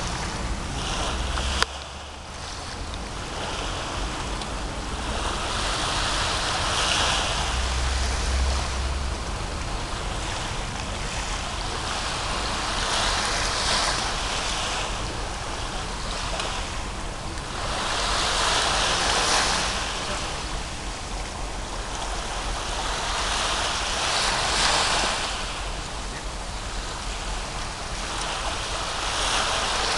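Small waves washing onto a sandy shore, swelling and falling back every five or six seconds, with some wind rumble on the microphone. A single sharp click about two seconds in.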